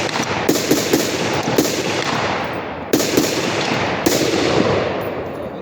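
Gunshots: several sharp reports about one to one and a half seconds apart, each trailing off in a long rolling echo.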